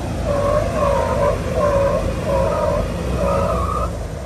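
A 4WD crawling up a rock ledge: the engine runs low under load while a pitched squealing groan repeats about six times, a little more than once a second.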